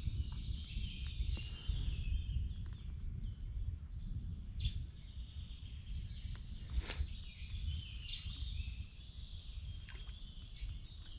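Birds chirping and calling, with a few sharp rising calls scattered through, over a steady low rumble.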